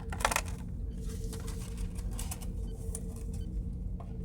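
Plastic and cardboard packaging of a die-cast model being handled and unwrapped: a run of irregular light clicks and crinkles over a faint steady hum.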